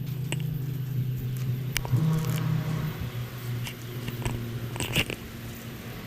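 Knife slicing and scraping through a flounder's flesh along its bones: scattered short scrapes and clicks, the sharpest about two seconds in and near five seconds, over the steady hum of an air conditioner.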